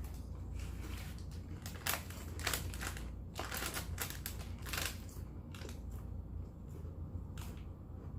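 Irregular sharp crunches and crinkles from Lay's Sour Cream and Onion potato chips and their bag, handled and eaten.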